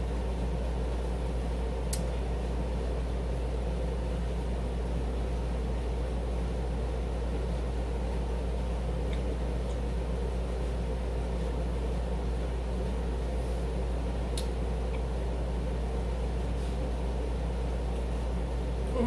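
Air conditioner running on its fan setting: a steady low hum and whir. A few faint clicks sound over it.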